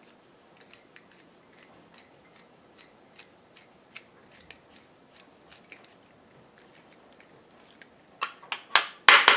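Light metallic clicks and ticks of a T-handle tap wrench and tap being worked out of a freshly tapped steel part, with a cluster of louder metal clinks near the end.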